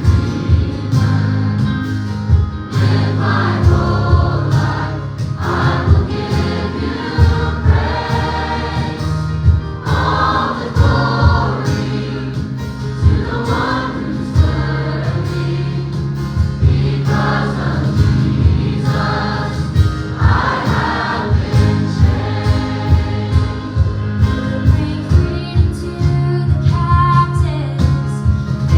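A gospel choir and band performing a worship song, the voices carried over sustained bass and a steady beat.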